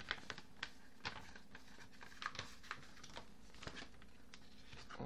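Paper and a plastic wrapper rustling and crinkling as art prints are slid out of their packaging and handled, with irregular light ticks and crackles.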